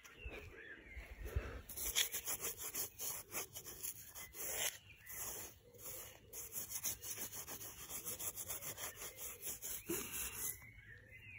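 Rustling and rubbing right at the microphone, in quick irregular strokes for most of the clip, of the kind a phone makes when handled or carried while walking over grass. Birds chirp at the start and again near the end.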